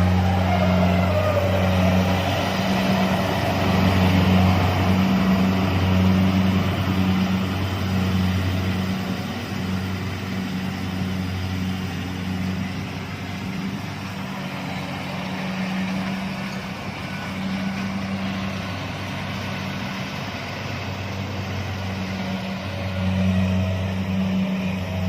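Kubota DC-70 combine harvester working at speed in a rice field: a steady low engine hum over the noise of its cutting and threshing gear. It is louder at the start and again near the end, and fainter in between.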